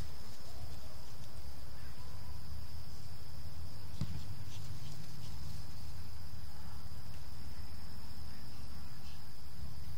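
Steady high insect trilling, over a continuous low rumble, with a single sharp tap about four seconds in.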